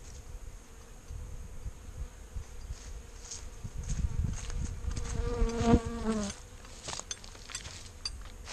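Honeybees buzzing around open hives, a faint steady hum, with one bee flying close past about five seconds in, its buzz loud for about a second before it fades away.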